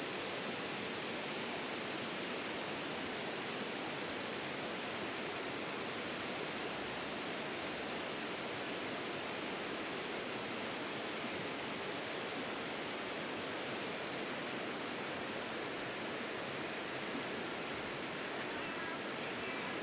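Steady rush of a river's flowing water: an even, unbroken noise.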